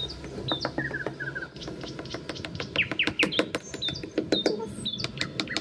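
Several birds chirping and calling: short hooked whistles, quick runs of three notes and falling sweeps, repeated throughout, with many light clicks among them.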